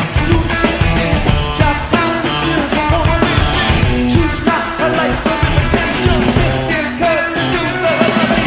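Rock music with electric guitars, drums and singing.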